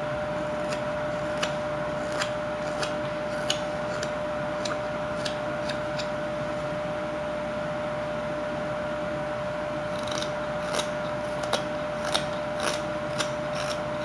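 Whittling knife slicing shavings off a wooden carving blank: a string of short, crisp cuts, roughly one a second, pausing for a few seconds midway and then coming closer together near the end, over a steady hum.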